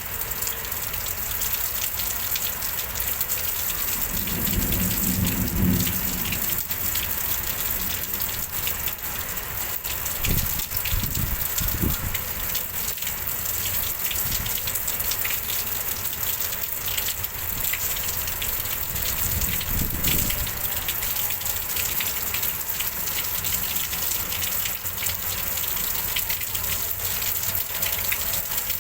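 Heavy rain pouring steadily in a windstorm, with a few brief low gusts of wind buffeting the microphone.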